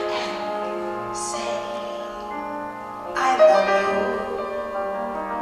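Background music of sustained, layered tones, with brief airy swells about a second in and again after three seconds.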